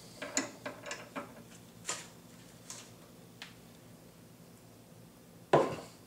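Light metallic clicks of an adjustable wrench working the screw of a chain breaker on a steel roller chain, then one loud sharp snap about five and a half seconds in as the rivet pin breaks free of the link.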